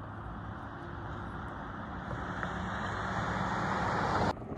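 Road traffic: a passing vehicle's tyre and engine noise, a steady hiss that grows louder over the last couple of seconds as it approaches, then cuts off suddenly near the end.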